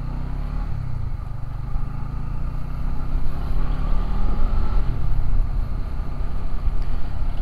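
Honda CB150X's single-cylinder engine running under way, its pitch rising twice as it accelerates, with a steady low rumble.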